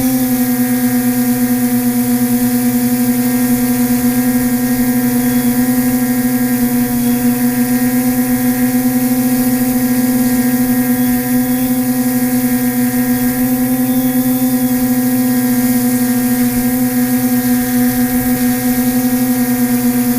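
Multirotor quadcopter's four brushless motors and propellers in flight at a steady speed: an even, high hum holding one pitch with overtones.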